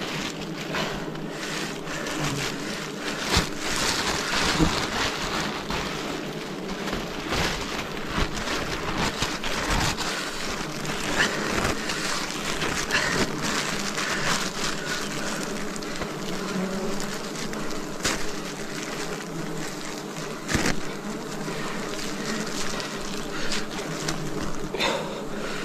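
A swarm of wild bees buzzing steadily, with occasional knocks and crackles.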